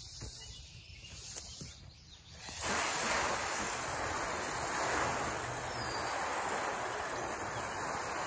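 Garden hose trigger nozzle on its shower setting spraying water: a steady hiss that starts suddenly about two and a half seconds in, after a few faint taps.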